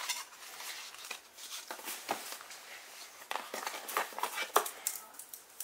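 Packaging being handled: paper and cardboard rustle and slide, then irregular clicks, knocks and scrapes as an item is worked out of a molded tray in the box. The sharpest knock comes about four and a half seconds in.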